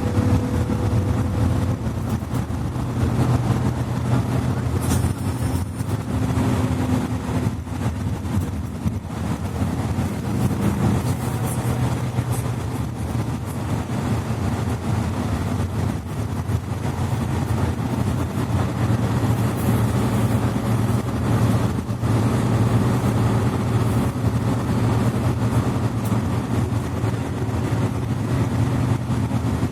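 Interior ride sound of a Mercedes-Benz Citaro C2 articulated bus with a Voith automatic gearbox. The diesel engine and driveline run with a steady low drone while the bus drives.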